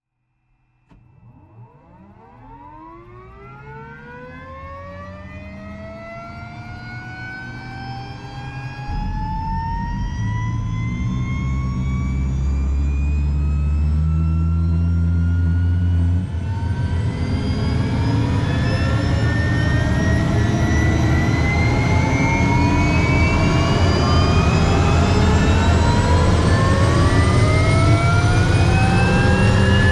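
Helicopter turbine engine starting up: a whine that climbs steadily in pitch and grows louder, with a deeper rumble joining about nine seconds in.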